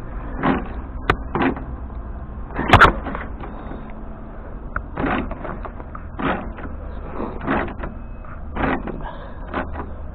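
Hand tools working a part loose at a car's front end: a run of short scraping knocks, about one a second, with a sharp click about a second in and a louder knock near three seconds.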